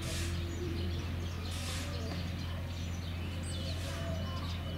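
Outdoor ambience: a steady low hum with faint, scattered bird chirps.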